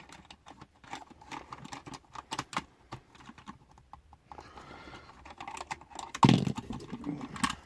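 Small plastic clicks and taps from a Playmobil figure and its toy DeLorean being handled, as the figure's legs are bent into a seated position and it is fitted into the car, with a louder knock about six seconds in.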